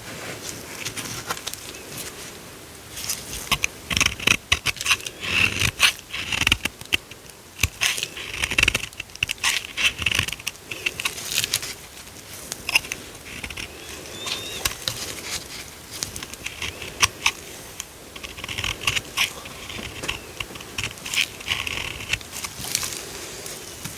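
Dry soap being cut and crumbled by hand: dense runs of crisp crackles, clicks and scrapes, busiest about four, nine and twenty seconds in.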